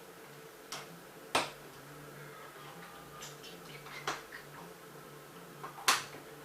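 Plastic Lego bricks clicking and tapping as they are handled and pressed together, with two sharper clicks, one about a second and a half in and one near the end, over a faint steady hum.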